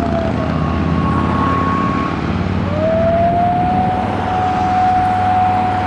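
Electronic fire-vehicle siren from a SAP-520 siren amplifier sounding a slow wail: a tone that falls away just after the start, then rises a little under three seconds in to a long held note that starts to drop near the end. A fainter higher tone runs for about two seconds near the start, all over a steady low rumble of road and engine noise.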